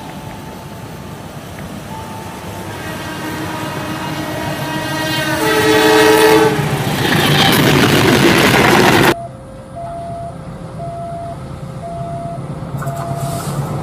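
CC206 diesel-electric locomotive sounding its horn as it approaches and passes with its train, growing loud, until the sound cuts off suddenly about nine seconds in. After the cut, a level-crossing warning alarm alternates two tones, about two a second, over the low running of an approaching locomotive.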